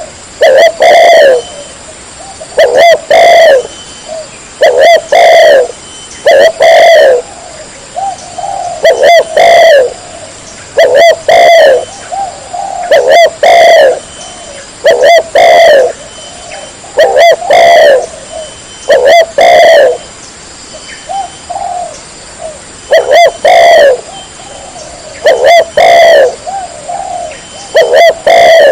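Spotted dove cooing loudly and close, repeating its phrase about every two seconds: two loud coos that fall in pitch, with softer coos in between.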